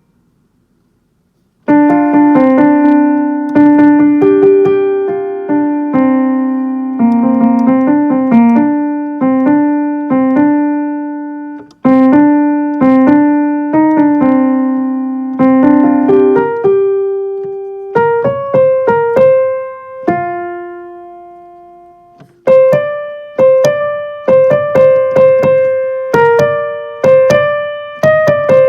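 Piano playing a single-line melody of struck, decaying notes, starting about two seconds in. Near the middle it slows to a few long held notes, then the tune picks up again.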